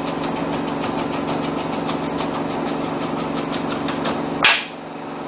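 Rapid knife chopping on a plastic cutting board, about five quick strokes a second, over a steady mechanical hum. Near the end a loud swish, after which the hum cuts off.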